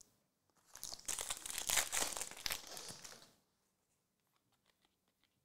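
Crinkling rustle of glossy trading cards being handled and flipped through by hand, lasting about two and a half seconds, then only a few faint soft ticks.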